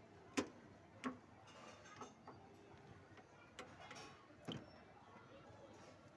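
A handful of sharp, irregular clicks and taps, about five, over a faint background hiss.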